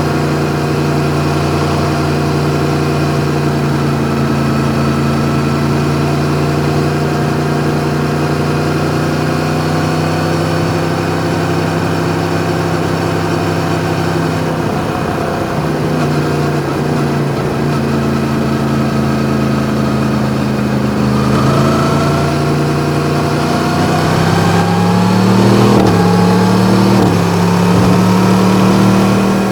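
Yamaha MT-10's crossplane inline-four with an Akrapovič exhaust running at a steady cruise, its note slowly sagging. About two-thirds of the way through it opens up, and the pitch climbs in a few steps as the bike accelerates.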